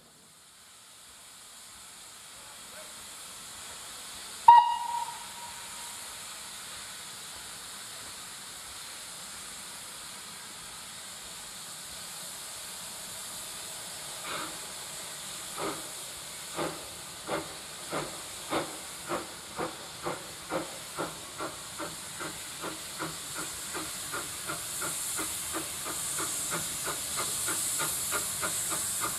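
Steam locomotive hissing steam, giving one short whistle blast, then starting away: its exhaust beats begin slowly and quicken to about three or four a second as it gathers speed and draws closer.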